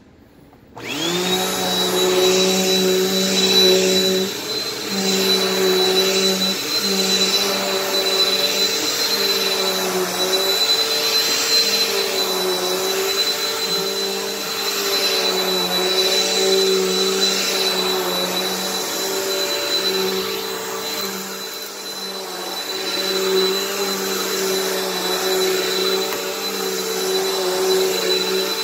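Bissell PowerForce bagged upright vacuum cleaner switched on about a second in, its motor spinning up with a rising whine, then running steadily while being pushed about, its pitch and level wavering slightly.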